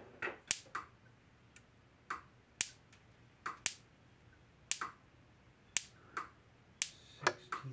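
High-voltage sparks snapping from an AgriOtter 2-joule electric fence energizer's fence terminal to a screwdriver held close to ground, one sharp snap with each pulse, about one a second, with fainter clicks in between.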